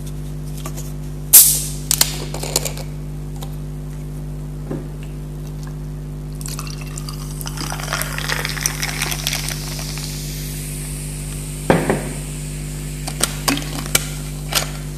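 A plastic bottle of Sting, a red carbonated energy drink, is unscrewed with a short, sharp hiss of gas, then the cap clicks a few times. From about six to ten seconds the drink is poured into a glass, splashing and fizzing. A knock comes near twelve seconds, followed by small clicks of the cap being handled.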